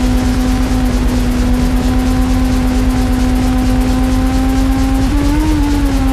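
Sport motorcycle engine running at a steady high pitch at speed, with wind rumble on the bike-mounted microphone. About five seconds in the pitch rises briefly and settles back.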